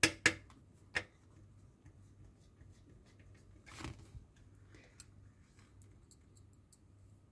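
Small screwdriver and tiny screw clicking against the plastic and metal parts of a scale-model car door, with three sharp clicks at the start, then a short scrape near the middle as the door part is handled, and faint ticks after.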